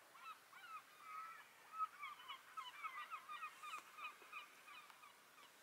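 Faint chorus of many short, overlapping bird calls from a flock, busiest through the middle.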